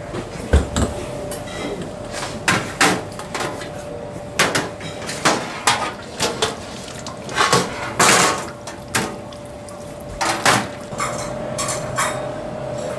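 Dishes and utensils clinking and knocking: a dozen or so separate sharp clinks at irregular intervals over a steady hum.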